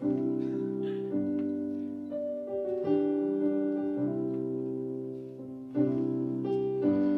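Piano or keyboard playing the slow chord intro to an R&B ballad, each sustained chord struck about once a second or two.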